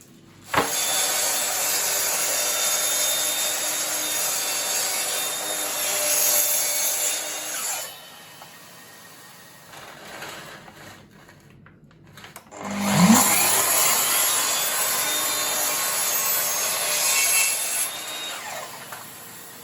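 Electric power saw cutting wood in two long passes of several seconds each, with a quieter pause between them; the motor's pitch rises as it spins up at the start of the second cut.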